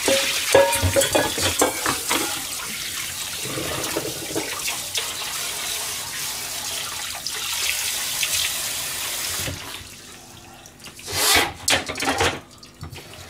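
Kitchen tap running into a stainless-steel sink while pots, pans and dishes are rinsed, with scattered clinks and knocks of metal and crockery. The water shuts off about nine and a half seconds in, followed by a few short, loud rubbing and knocking sounds.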